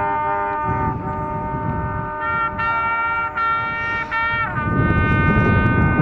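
Marching band brass playing: held chords, then a run of short punched chords that end in a downward fall-off into a loud held chord. A low rumble of wind on the microphone runs underneath and grows louder near the end.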